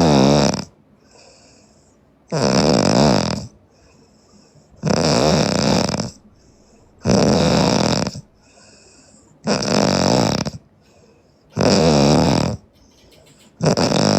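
A sleeping woman snoring loudly. Each rough, rattling snore lasts about a second and repeats about every two and a half seconds, with only faint sounds between them.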